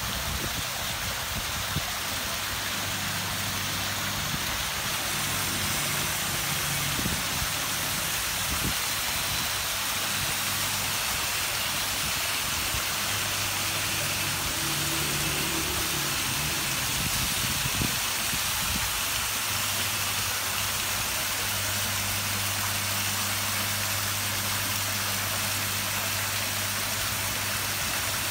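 Rockery waterfall splashing steadily into a garden pond, a constant rushing hiss of falling water, with a steady low hum underneath.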